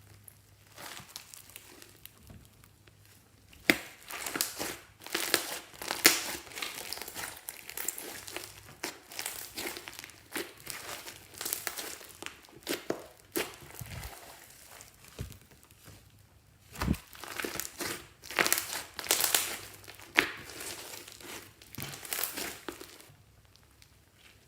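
Fluffy slime being mixed and worked, with sticky crackling, crinkling and popping in irregular bursts and a few sharp snaps. It is quiet for the first few seconds.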